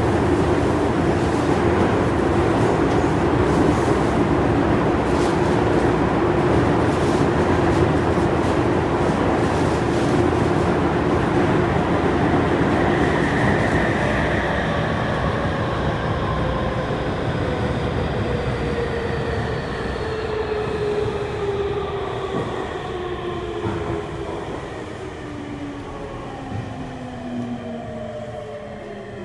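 Inside a Tokyu 3000 series train car: the running noise at speed, then the train slows, its traction motors and inverter whining in several tones that glide steadily down in pitch as the noise fades. The whine comes from the set's original, un-updated VVVF inverter software.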